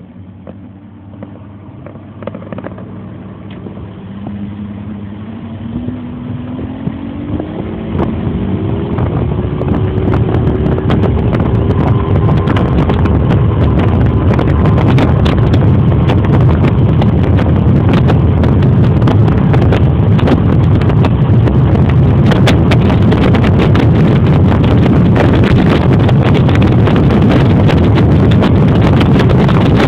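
Bass boat's outboard motor accelerating, its pitch climbing over the first ten seconds or so. Loud wind buffeting the microphone at high speed then covers it.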